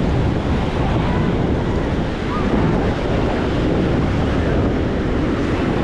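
Ocean surf washing onto a sandy beach, a steady rush, with wind buffeting the microphone.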